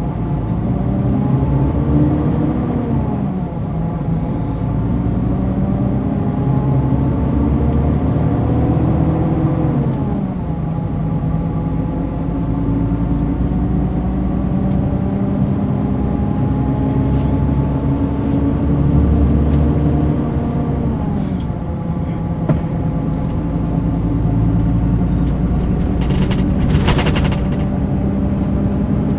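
Mercedes-Benz O500 RSD BlueTec5 coach's diesel engine under way, its note climbing slowly and dropping back three times as it pulls through the gears. A short hiss comes near the end.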